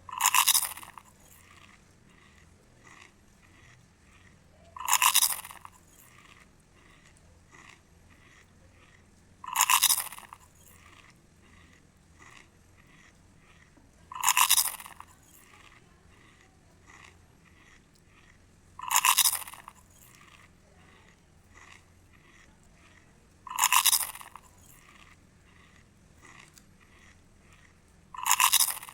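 Loud crunching bites into crisp food, seven in all, evenly spaced about every five seconds, each lasting under a second, with faint chewing between them.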